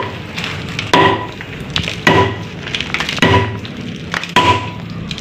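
Steady pounding on the concrete and hollow-block seal of a cemetery wall niche tomb as it is broken open, about one blow a second. Each strike is sharp and has a short ringing note.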